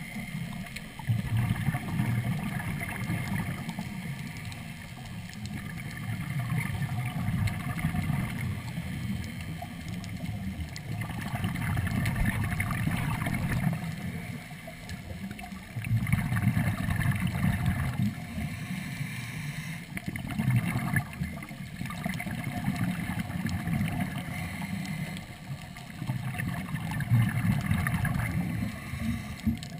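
Scuba regulator exhaust underwater on a third-lung hookah air supply: exhaled air bubbles out in long low surges lasting a few seconds each, with quieter gaps between breaths. Heard through an underwater camera housing.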